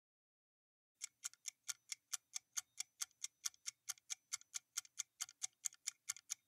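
Quiz countdown-timer sound effect: fast, even clock ticks, about four to five a second, starting about a second in.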